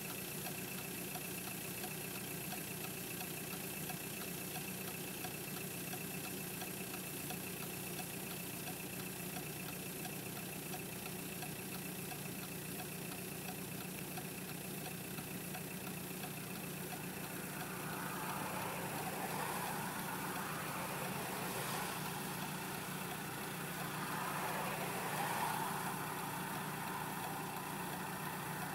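Car engine idling, a steady hum heard from inside the cabin. In the second half a louder rushing sound swells up and fades twice.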